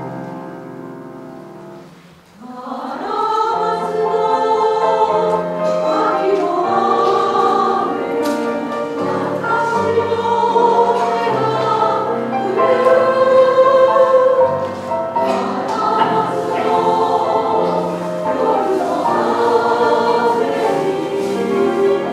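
Women's choir singing. A held chord fades away, and about two seconds in the choir comes back in at full voice and sings on steadily.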